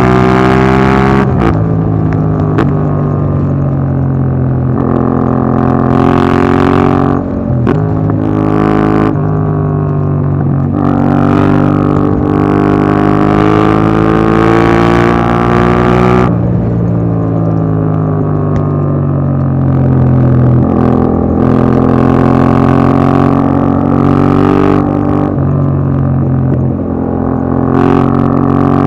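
Yamaha MT-07's parallel-twin engine through an Akrapovic Racing Line exhaust with its dB killer fitted, pulling up through the gears: the pitch climbs, drops at each shift and climbs again, with a long pull in the middle before it eases off. Wind rushes over the helmet microphone during the harder acceleration.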